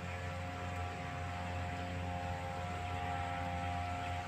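Power sprayer's small petrol engine running steadily at speed: a constant low hum with a higher whine over it.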